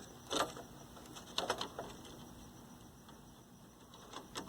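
Faint clicks and small knocks of a component being handled and pressed back into its socket on a vintage TV chassis: one click about half a second in, a few more around a second and a half, and another near the end.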